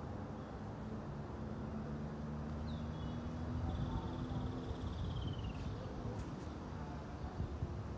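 Outdoor background sound: a low steady hum with one high, drawn-out whistling note near the middle that bends down in pitch as it ends.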